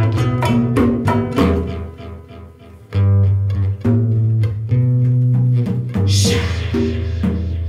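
Live acoustic band music without singing: hand drums (congas and bongos) struck in a steady rhythm with acoustic guitar over a deep bass line. The playing drops back briefly about two seconds in, and a hiss rises about six seconds in.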